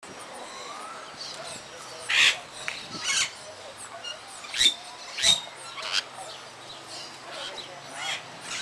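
Parakeets calling: several sharp, loud squawks about a second apart over a steady background of softer chirps and chatter.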